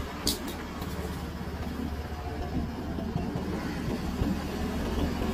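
Steady low running noise of a moving vehicle, with a brief sharp click about a third of a second in.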